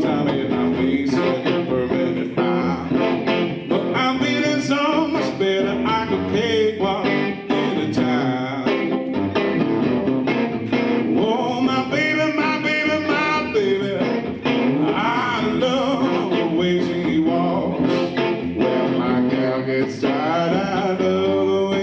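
Live blues played on electric guitar and flute: the guitar keeps a steady accompaniment while the flute carries a wavering melody over it. Near the end the flute stops and the guitar plays on alone.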